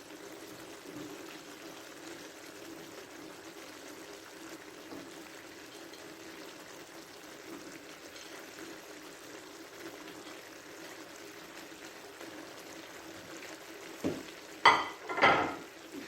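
Chicken and vegetable stir-fry cooking in a pan with a steady, quiet sizzle and bubbling. Near the end, a few short, loud knocks.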